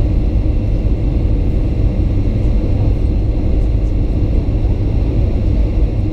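Steady low rumble of a Boeing 737-900's CFM56-7B turbofan engines and rushing air, heard inside the passenger cabin during the descent on approach.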